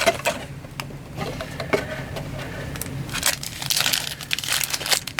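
Cardboard box and wrapped trading card packs being handled: rustling and crinkling with many sharp clicks and taps, busiest about three to four seconds in.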